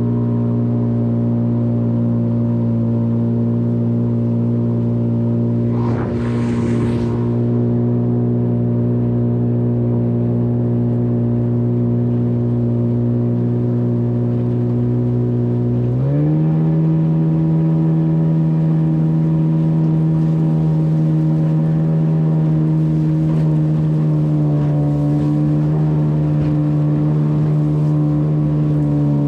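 An engine running at a steady speed, then stepping up in pitch about sixteen seconds in as it speeds up, and dipping slightly a few seconds before the end. A brief rushing noise passes about six seconds in.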